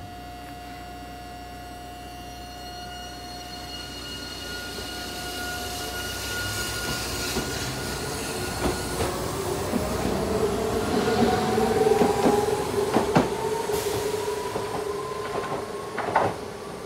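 Hiroshima Electric Railway 3900-series tram with a Toyo Denki hybrid-SiC VVVF inverter pulling away from a stop: a steady whine at first, then the inverter and traction-motor whine rising in pitch as it accelerates, with a few sharp wheel clacks over rail joints.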